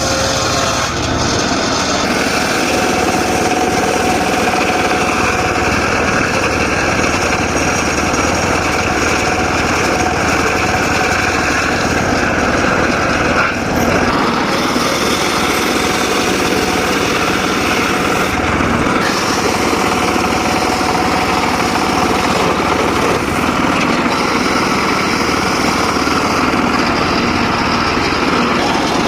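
Engine-driven circular saw of a mobile sawmill running steadily while cutting dry teak wood, a loud continuous machine noise with the blade working through the timber.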